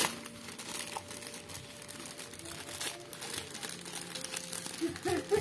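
Clear plastic wrapping bag crinkling in irregular crackles as hands handle it and pull it open.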